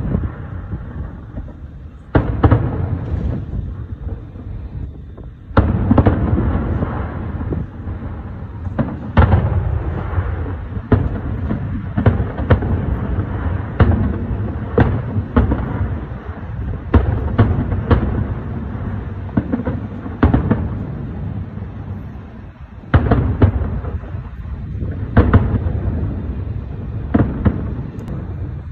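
Aerial firework shells bursting in quick succession: a long string of sharp bangs over a continuous low rumble, with two short lulls.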